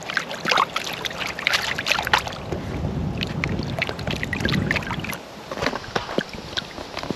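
Water sloshing and splashing as a plastic gold pan is dipped and swirled in a tub of water, washing down the fine crush of a crushed-quartz sample while panning for gold. Many small sharp splashes, with a heavier swirling wash in the middle.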